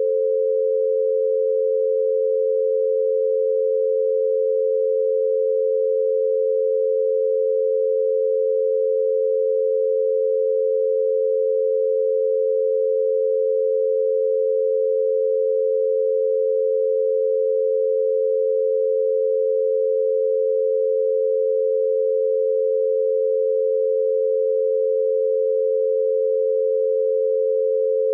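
Two steady pure tones around 500 Hz, about 88 Hz apart, one in each ear: an 88 Hz binaural beat. The tones run unchanged, with no other sound.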